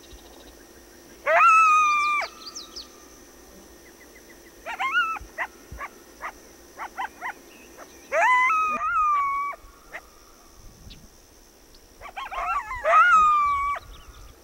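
Coyotes howling and yipping. A rising howl held on one pitch for about a second comes near the start, with scattered short yips after it and another howl in the middle. Near the end a quick burst of yips runs into a longer howl.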